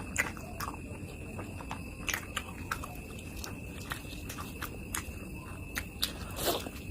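Close-up mouth sounds of a person chewing and biting pork curry: short wet smacks and clicks at an irregular pace, with a louder, longer sound near the end.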